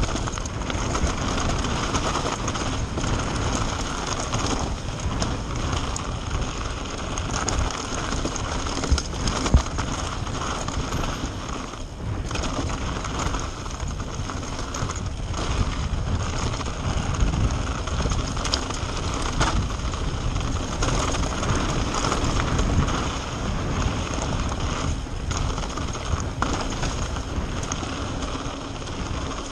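Mountain bike riding fast downhill on a rough gravel trail, heard close up: a continuous rush of wind and tyre noise, with the bike clattering and knocking over stones and bumps all the way through.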